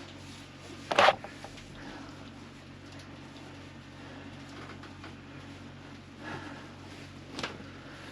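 Handling noises: a sharp knock about a second in and two softer knocks near the end, over a steady low hum.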